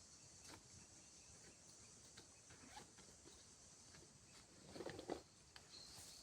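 Near silence: a faint steady high hiss with scattered soft clicks, and a brief louder rustle about five seconds in.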